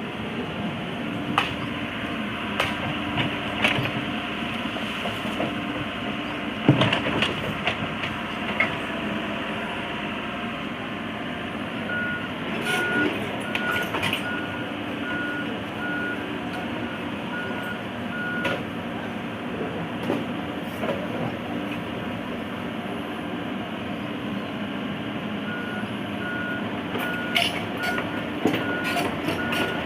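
Excavator's diesel engine running steadily while the machine works, with sharp metal knocks scattered through. A warning alarm beeps at about two beeps a second, in a stretch about halfway through and again near the end.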